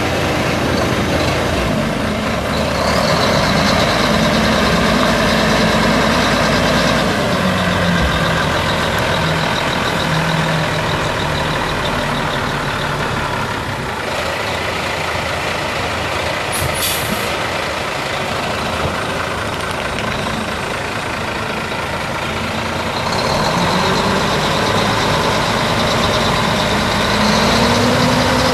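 1984 Mack DM685S dump truck's Mack E6 11-litre inline-six diesel running steadily, its engine note shifting in pitch now and then. A short high hiss comes a little past halfway.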